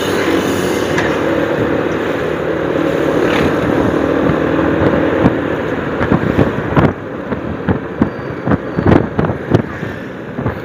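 Motorcycle engine running steadily under way, with road and wind noise on the rider's microphone. From about halfway, irregular gusts of wind buffet the microphone.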